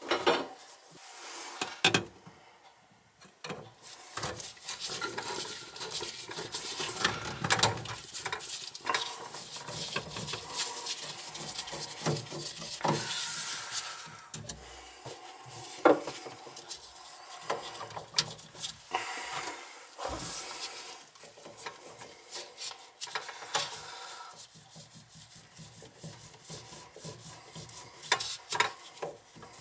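Irregular metal scraping, rubbing and clicks as a chrome under-sink angle-stop shutoff valve is worked on by hand, its stem being turned and handled during repair.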